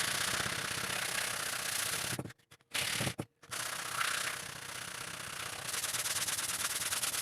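Sandpaper rubbed by hand in quick back-and-forth strokes over a wooden joint filled with fast glue and powder, levelling the filled surface. The rubbing breaks off twice briefly, a little past two seconds and just after three seconds in.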